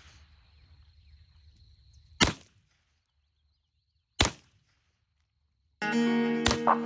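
Double-tank BinTac S45 .45-calibre semi-auto big-bore air rifle firing: single sharp, firearm-like shots about two seconds apart, three in all. Background music comes in near the end, and the last shot lands over it.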